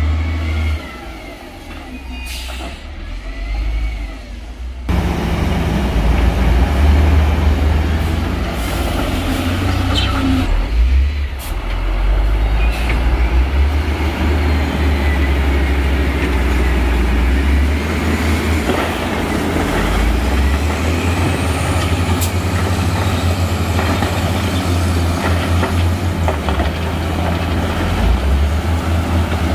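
Heavy diesel engines of dump trucks and a wheel loader running under load with a deep, steady rumble that steps up in loudness about five seconds in. A few short air-brake hisses.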